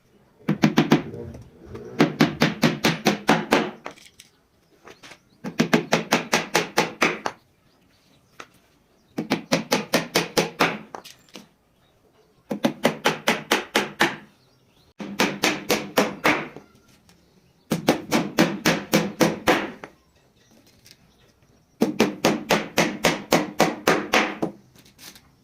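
Rapid, regular strokes of a hand tool on wood, about six a second, in bursts of a couple of seconds with short pauses between.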